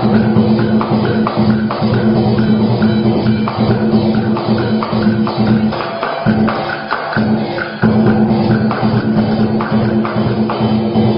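Instrumental music: a held low note under a steady run of jingling, tapping percussion strikes. The low note drops out briefly a little past halfway.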